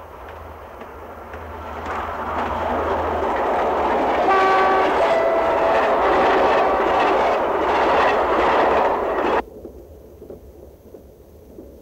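A passenger train passing at speed: a rumble and the rhythmic clatter of wheels over rail joints, growing louder, with its horn sounding a chord from about four seconds in for around three seconds. Near the end it cuts off suddenly to a much quieter, muffled rumble as heard inside a carriage.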